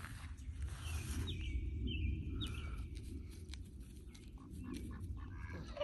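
Small birds chirping in a few short, high, falling notes about one to three seconds in, over a steady low rumble, with a short falling animal cry at the very end.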